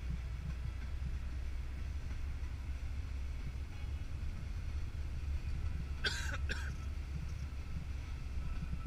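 Steady low rumble of a car driving on a snow-covered road, heard from inside the cabin. About six seconds in, two brief sharp noises half a second apart stand out above it.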